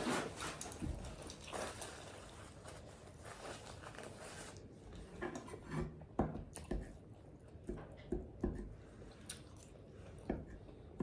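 A person chewing and smacking their lips while eating, close to the microphone: a dense crackly stretch for the first four seconds or so, then separate wet smacks and clicks.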